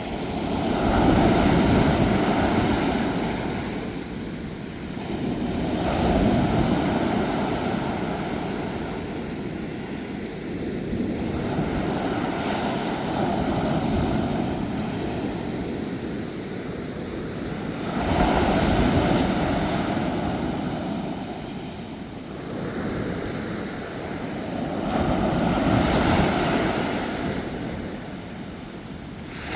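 Sea waves breaking and washing on a shore. Five surges swell and fade, roughly every six seconds.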